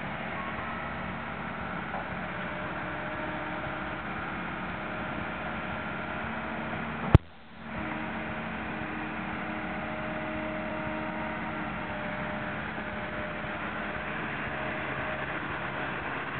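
Caterpillar 312 long-reach excavator's diesel engine running steadily, a hum with a few faint steady tones under a hiss. About seven seconds in, a sharp click and a brief dropout break the sound.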